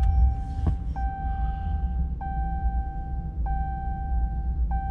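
Ram 1500 cabin warning chime ringing in a steady tone, struck again about every second and a quarter, over the low rumble of the truck's 5.7 Hemi V8 started and running.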